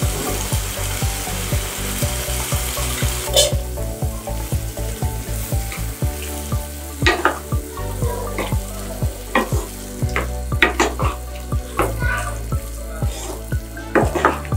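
Aloo gobi curry sizzling in a non-stick pan as it is stirred. The hiss fades after a few seconds, and the stirring utensil then gives many sharp scrapes and taps against the pan, more of them in the second half.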